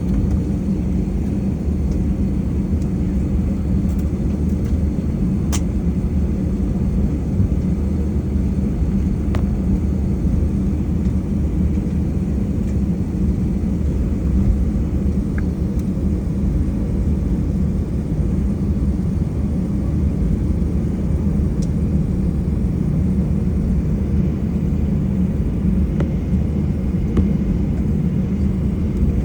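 Steady low rumble inside an Airbus A320's cabin as it taxis, from the jet engines at taxi power and the airframe rolling, with a few faint clicks.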